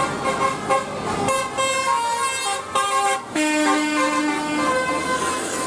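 Bus 'telolet' horn, a multi-tone air horn, playing a melody of held notes that step up and down in pitch.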